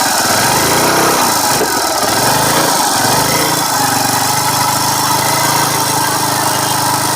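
TVS Sport motorcycle's single-cylinder four-stroke engine running, revved up and down a few times in the first seconds and then held at a steady idle. It carries a slight crackling rasp like a spark jumping, a noise that began after the magneto's armature coil was replaced and that the mechanic traces to the magneto coil side.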